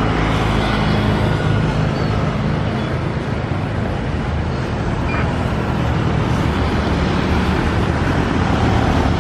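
Boeing 737-800 jet engines running at taxi power as the airliner rolls past: a steady engine noise with a low hum underneath.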